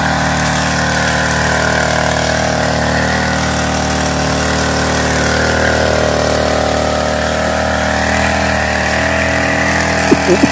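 Small petrol engine of a knapsack power sprayer running steadily under load, driving the pump that sprays weed killer through the lance.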